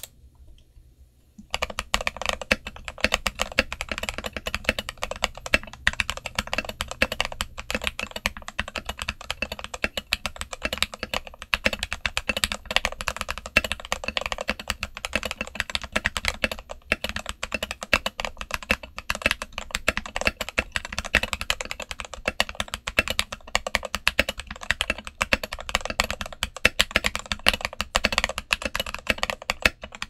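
Redragon K530 mechanical keyboard with Gateron Milky Yellow linear switches and XDA dye-sub PBT keycaps, dampened with the Tempest mod, switch pads and felt, typed on continuously. The typing starts after a brief quiet, about a second and a half in.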